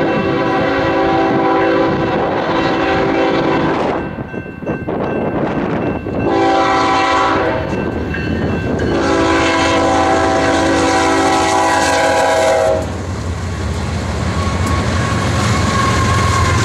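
BNSF GE ES44DC diesel locomotive sounding its multi-chime air horn for a grade crossing: a long blast, a short one, then another long one. The horn gives way about 13 seconds in to the heavy rumble of the locomotive's engine and a steady whine as it pulls up and passes.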